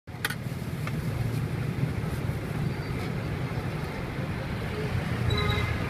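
Steady low rumble of street traffic engines, with a few faint clicks near the start and a short high tone about five seconds in.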